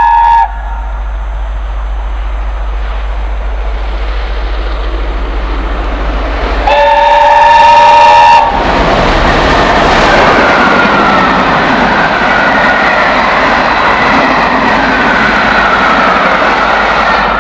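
Peppercorn A1 Pacific steam locomotive 60163 Tornado running through a station at speed: its multi-note whistle ends about half a second in, the noise of the approaching train grows, and a second whistle blast sounds for about two seconds near the middle. After that the locomotive and its coaches pass close by, loud and steady.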